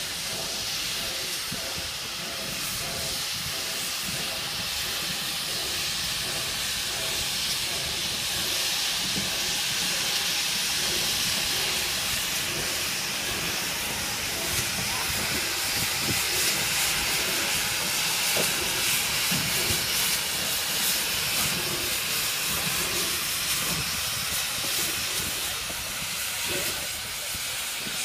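Steam locomotive hissing steadily as it moves slowly along the track, steam escaping from low at its front end, with scattered knocks from the wheels and running gear. The hiss grows louder through the middle as the engine passes close.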